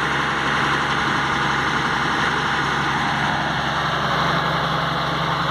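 Komatsu PC200 hydraulic excavator's diesel engine running steadily at an even, unchanging level.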